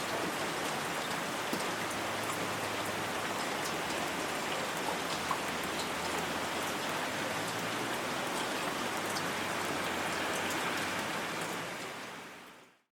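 Light rain falling: a steady patter with scattered individual drop ticks, fading out near the end.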